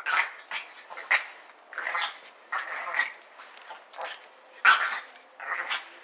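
Chihuahuas barking in play, a string of short sharp yaps coming every second or so.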